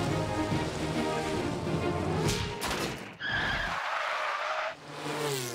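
Cartoon background music for the first few seconds, then a cartoon race-car sound effect: a rushing, skidding noise about three seconds in that lasts over a second.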